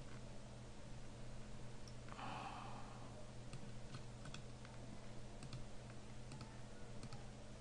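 Faint clicks of a computer mouse and keyboard, several scattered through and some in quick pairs, with a short soft rush of noise about two seconds in, over a steady low hum.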